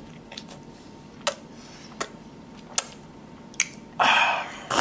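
Exaggerated ASMR-style mouth sounds close to the microphone: four sharp clicks spaced a little under a second apart, then a loud breathy rush for under a second near the end.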